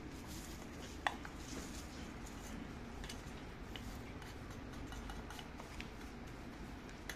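Faint scraping and light clicks of a spoon and a plastic spatula working biscuit crumbs into cake tins, pressing down a cheesecake base, with one sharper click about a second in.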